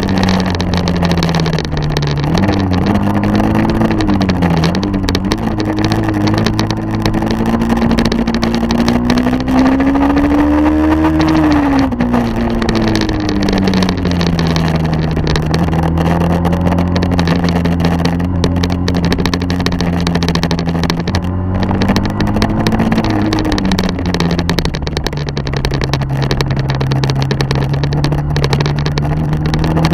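Engine of a vehicle following a downhill inline skater, running steadily with its pitch rising and falling slowly as it eases off and speeds up, over a rush of wind noise.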